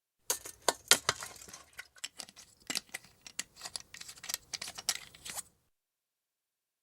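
Plastic army-issue canteen being handled, its screw cap turning, giving a quick run of sharp plastic clicks and knocks that stops about a second before the end.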